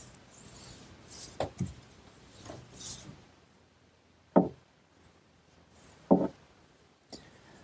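Stain being worked onto pine boards in repeated swishing strokes for the first three seconds, then a few knocks on the wooden cabinet: two about a second and a half in, one near the middle and one about six seconds in.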